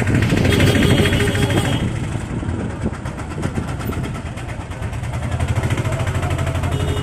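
A small passenger three-wheeler's engine running with a fast, even putter, heard from on board as it rides along the road. It eases off through the middle and picks up again near the end.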